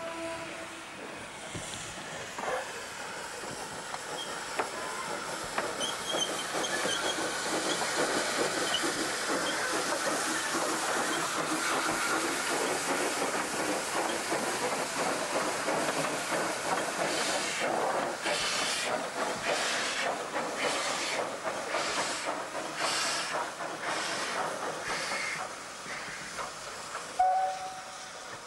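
South African Railways GMAM Garratt steam locomotive moving slowly past with a steady hiss of steam. In the second half its exhaust beats come at about one a second, and a short two-note whistle toot sounds near the end.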